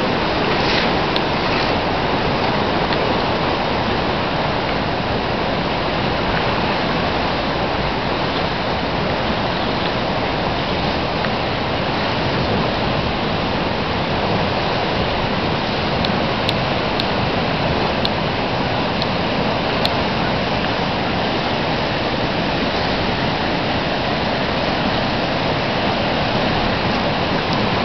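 A river in flood, its fast water rushing past in a steady, loud wash of noise that never lets up.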